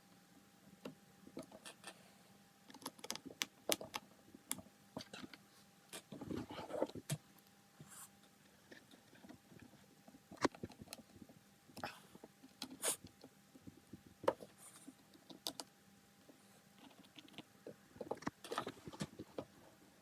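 Small, irregular clicks, ticks and light scrapes of a tiny Phillips screwdriver and screws being handled and driven into a laptop screen's mounting points, over a faint steady hum.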